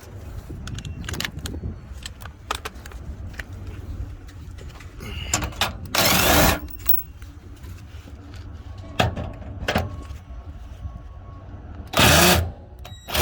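Metal clinks of hand tools and bolts while the bolts holding a 4Runner's underbody shield are removed, with three short loud bursts of noise, about six seconds in, about twelve seconds in and at the end. Wind rumbles on the microphone.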